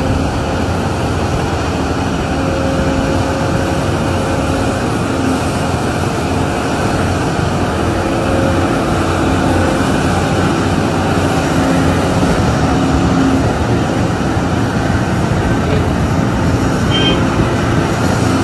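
Steady mechanical rumble of heavy machinery, with a faint engine hum and no distinct knocks or impacts.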